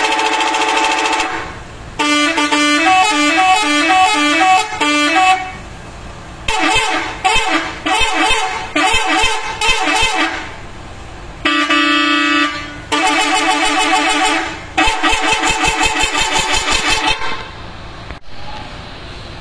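Indonesian "telolet" bus horn playing its multi-tone melody in several loud bursts, some held as a chord and others as quick runs of changing notes.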